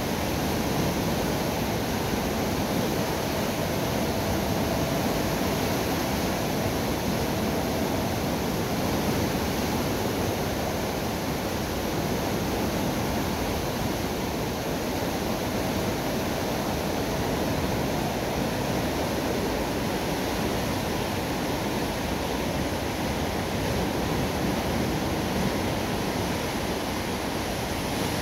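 Water rushing and churning through the sluices of a canal lock's mitre gates as the lock chamber drains, a steady, unbroken rush of turbulent water.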